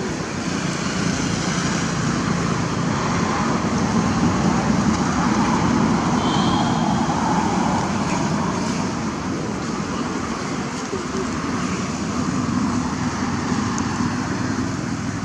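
Steady rumbling background noise that swells a little around the middle, with a brief faint high chirp about six seconds in.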